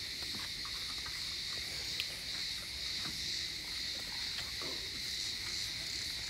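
Steady insect chorus, a continuous high-pitched chirring, with a few faint clicks over it.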